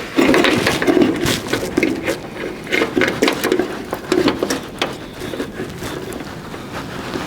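Hands working wiring inside a car door: irregular scraping and rubbing with many small clicks and knocks as harness connectors and rubber grommet boots are pushed through the door openings.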